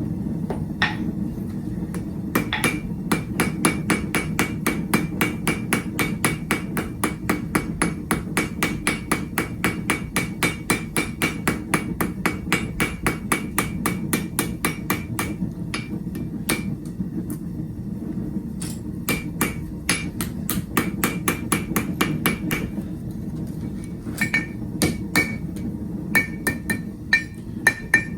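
Hand hammer striking hot steel bar stock on an anvil in a steady run of blows, about three a second, each with a short metallic ring, with a couple of brief pauses. A steady low hum runs underneath.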